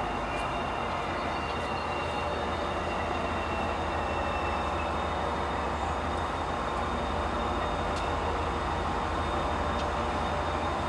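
Class 68 diesel-electric locomotive's Caterpillar V16 engine under power as it restarts a heavy loaded ballast train from a stand, a deep steady drone growing slightly louder as the locomotive draws nearer.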